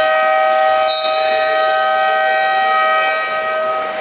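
Sports-hall game buzzer sounding one long, steady horn chord that fades out near the end. A brief high tone comes about a second in.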